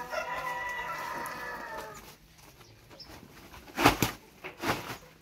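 A rooster crowing once, one long call of about two seconds. About two seconds after it ends come two sharp knocks, under a second apart, louder than the crow.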